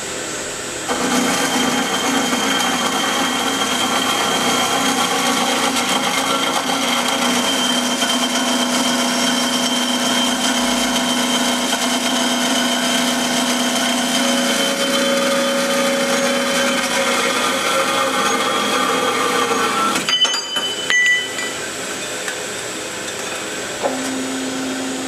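JMT HBA330 automatic horizontal band saw cutting through square metal tubing, a steady whine starting about a second in as the blade feeds into the tube. The cut ends about twenty seconds in, leaving a lower machine hum with a few clicks and a short steady hum near the end.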